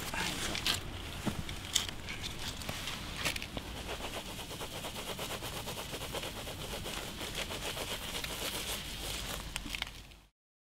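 A dish sponge scrubbing a small brass Stolperstein plaque set in paving stones, in quick rapid strokes. There are a few sharp clicks and knocks in the first few seconds, and the sound cuts off suddenly near the end.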